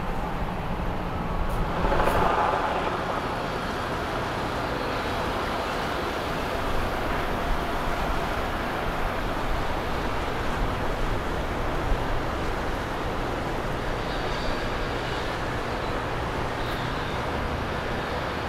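Boat engines and water wash from boats passing slowly, a steady rumble. It starts with an MTI powerboat's twin Mercury 450R outboard engines and swells briefly louder about two seconds in.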